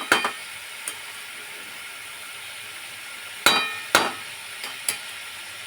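Metal cookware clinking: a few sharp strikes that ring briefly, two of them close together about three and a half seconds in. Under them is a steady sizzle of meat cooking in the covered pot.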